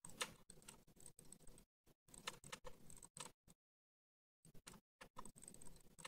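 Faint, irregular clicking of a computer mouse and keyboard, pausing for about a second in the middle.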